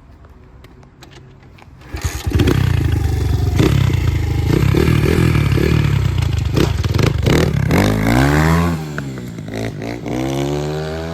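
Apollo RXF 150cc dirt bike engine running faintly, then revving loud about two seconds in. Later the engine pitch drops and climbs again several times with the throttle, easing off near the end.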